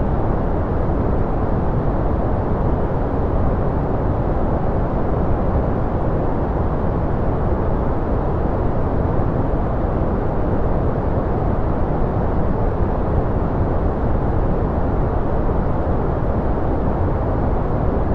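Steady, unbroken synthetic noise from a white-noise relaxation track. Its weight sits in the low and middle range, with little treble, so it sounds deep and muffled rather than hissy, like a distant rumble.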